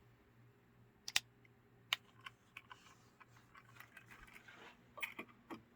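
A few faint, irregular clicks and taps of small objects being handled, in two loose clusters, about a second in and again near the end.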